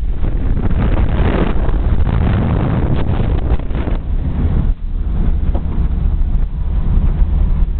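Classic air-cooled VW Beetle on the move: rushing wind on the microphone over the car's engine and tyre noise. Partway through, the wind rush gives way to a steadier, lower engine drone heard from inside the cabin.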